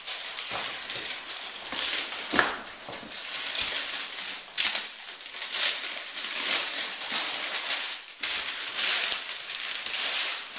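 Packing material rustling and crinkling as a box is unpacked by hand, in irregular bursts, with one sharp knock about two seconds in.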